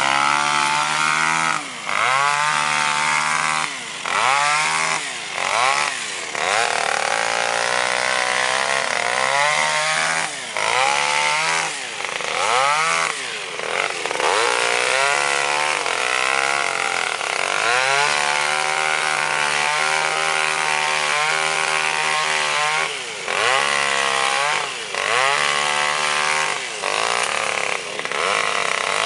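Tractor engine driving a tractor-mounted sugarcane harvester, running hard, its pitch dipping and recovering every second or two.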